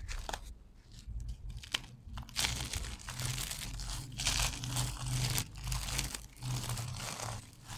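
Hands crushing a bar of soap carved into thin stripes, the stripes snapping and crunching. The shavings are then crumbled between the fingers. A few light clicks come first, and dense crunching sets in about two and a half seconds in, repeating in waves.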